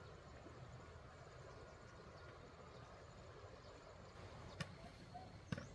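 Near silence: a faint steady background hiss, broken by two short sharp clicks about a second apart near the end.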